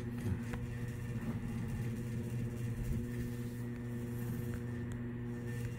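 Steady low hum with several even overtones over faint background hiss.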